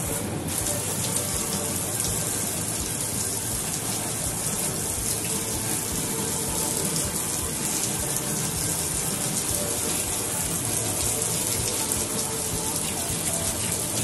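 Water running in a steady, unbroken stream.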